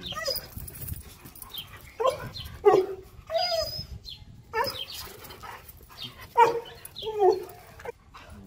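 Dogs, a Siberian husky and a small long-haired Chihuahua-type dog, giving a string of short whining yips and barks while they spar face to face.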